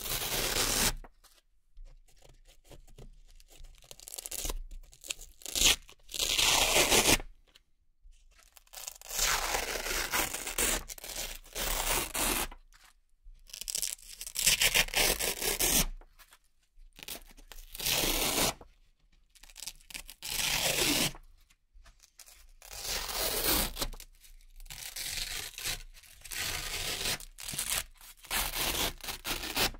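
Velcro hook-and-loop circles being peeled off a hook-and-loop board one after another: a string of crisp, crunchy ripping tears, each lasting a second or two, with short pauses between.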